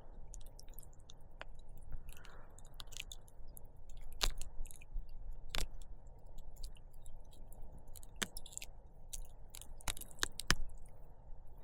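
Scattered light clicks and rustles of close handling, a few sharper clicks standing out, over a low steady rumble.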